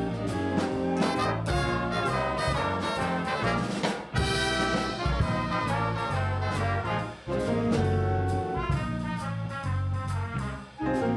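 High school jazz band playing a holiday tune, the brass section of trumpets and trombones to the fore over the rhythm section. Brief breaks come about four, seven and ten and a half seconds in.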